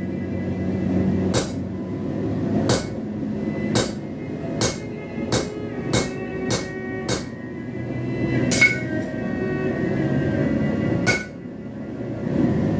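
Hand hammer striking a drift into hot steel on an anvil to open a square hole: about ten metallic blows, quicker in the middle, some ringing briefly, over a steady low rumbling noise.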